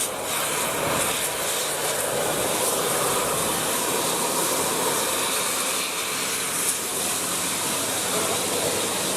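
Heavy tour bus passing close on a hill climb: a steady, even noise of engine and tyres without any horn.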